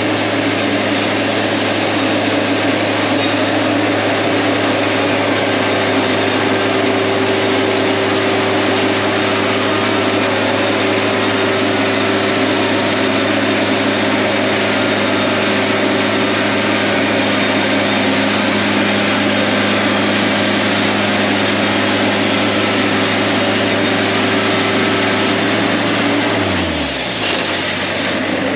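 An engine running at a steady speed, its pitch dropping near the end as it slows down.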